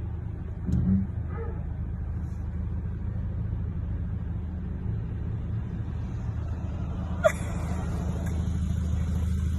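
Steady low rumble of a car's engine and running gear heard from inside the cabin, with a single sharp click about seven seconds in.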